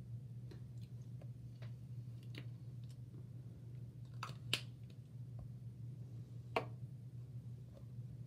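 Soft lip smacks and small clicks as chapstick is worked onto the lips and its tube is handled, with two sharper clicks about halfway through and again two seconds later.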